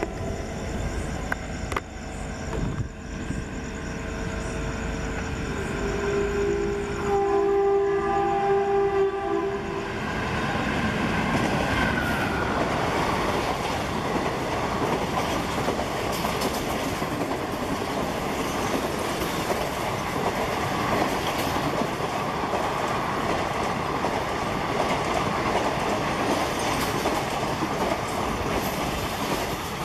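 Horn of an Indian Railways electric locomotive sounding as an express train approaches, with a long blast about a quarter of the way in. From about ten seconds in, the train passes at high speed close by: a steady rush of wheels on rail with clickety-clack from the coaches.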